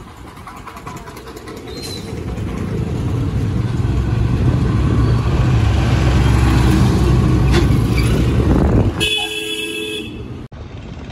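A heavy Tata truck's diesel engine rumbles close by, growing louder over the first few seconds. Near the end a vehicle horn honks for about a second.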